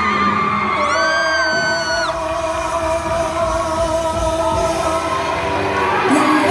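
Stage-musical cast singing a pop-rock song over amplified backing music, with long held notes that slide and waver in pitch, heard through the sound system of a large hall.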